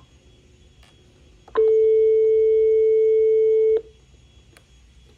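AT&T E5860 cordless phone sounding one steady electronic beep-tone for about two seconds, after a button click, then cutting off sharply.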